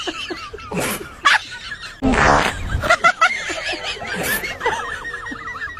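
A loud, rough prank fart sound lasting just under a second, about two seconds in, followed by people snickering and laughing.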